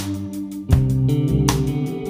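Background music led by guitar, with a steady beat; the chord changes and the music grows louder about 0.7 s in.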